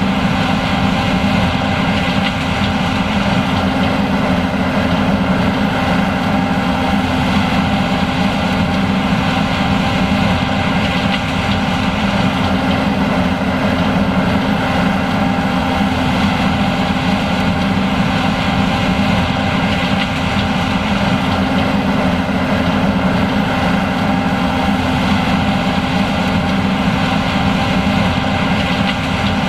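John Deere S780 combine running steadily: a constant machine drone with several steady tones over a strong low hum.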